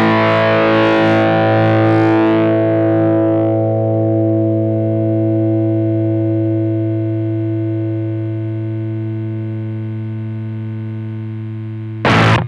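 Electric guitar chord played through a BC108 Fuzz Face-style fuzz pedal, left to sustain: the fizzy top fades over the first few seconds and the fuzzed notes ring on, slowly dying away. The pedal is working properly after its fix, and its tone is called glorious. A short, loud burst of sound cuts in near the end.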